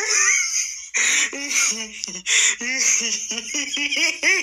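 A person's voice talking, with the words not made out.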